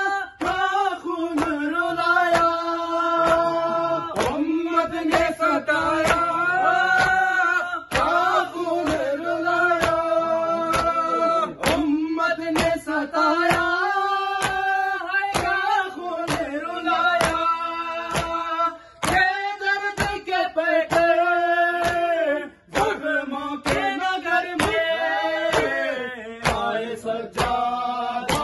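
Men chanting an Urdu noha lament in unison, unaccompanied, with held mournful notes. Under the voices runs a steady beat of sharp slaps, the matam of hands beating on chests in time with the chant.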